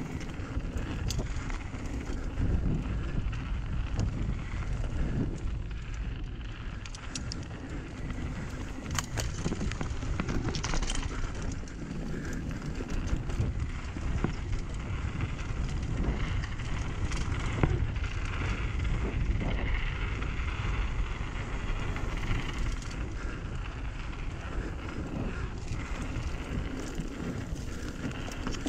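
Mountain bike riding a dirt trail: tyres rolling and crunching over dirt and rocks, with frequent clicks and rattles from the bike over bumps, and wind buffeting the microphone.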